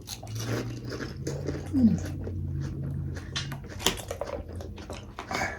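Close-up eating sounds: a pani puri shell crunching and being chewed, with scattered crisp clicks over a low closed-mouth hum that briefly slides in pitch about two seconds in.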